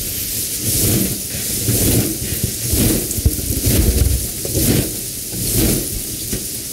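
A mass of inflated party balloons rubbing and bumping against one another and against the microphone, giving an irregular jumble of low thuds and hiss.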